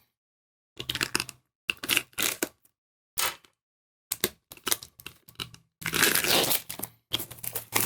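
Packaging on a trading-card booster box being torn open and crinkled, in a run of short rustling tears with brief gaps between them, getting busier near the end.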